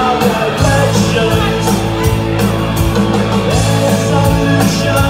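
Live rock band playing loud: electric guitars and bass guitar over a steady drum beat.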